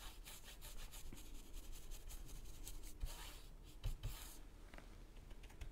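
Paintbrush bristles scrubbing glaze over a wooden board with a raised, cracked embossed stencil: a faint, rapid scratching of short brush strokes, with a soft thump about four seconds in.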